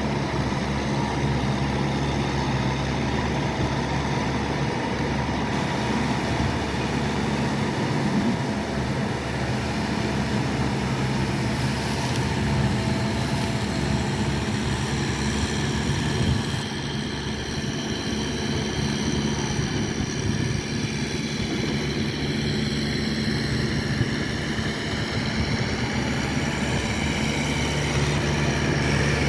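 Kubota farm tractor's diesel engine running steadily with a low, even drone.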